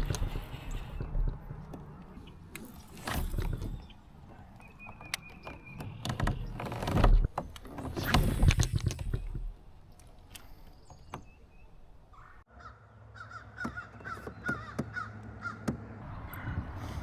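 Birds calling, with rushing swells of noise and scattered light knocks.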